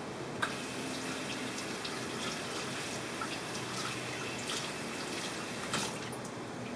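Water running from a kitchen tap into a sink, starting with a click about half a second in and stopping about six seconds in, with a few light knocks while it runs.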